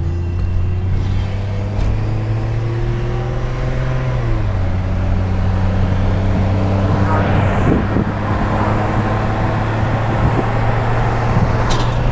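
A vehicle's engine and road noise while driving. The engine note rises slowly, drops about four seconds in as it shifts up, then holds steady, with a rougher swell of road noise partway through.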